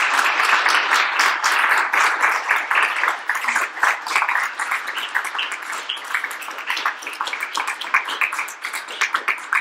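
Audience applauding: dense clapping that thins out over the last few seconds into fewer, separate claps.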